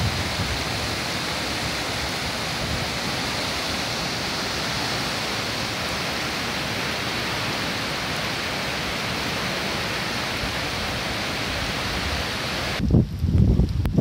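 Steady rushing of a river swollen by heavy rain, fast water pouring over rocks and a weir. Near the end it cuts to gusty wind buffeting the microphone.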